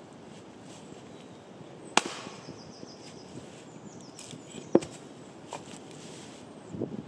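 Two sharp cracks, one about two seconds in and another near five seconds, with a smaller tick just after, over a steady faint hiss.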